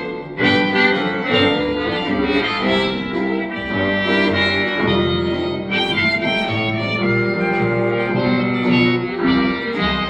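Old-time jazz band music playing: several instruments carry a melody over changing low notes.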